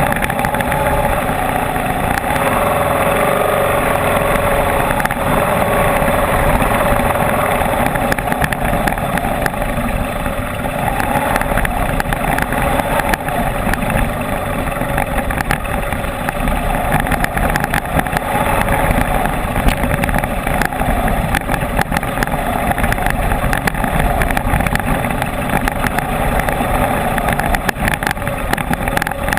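Enduro motorcycle engine running steadily while riding off-road.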